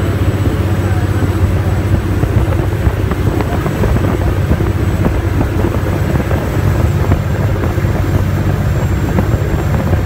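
High-speed passenger ferry's engines running steadily underway, a constant low drone under the rushing of wind and churned water.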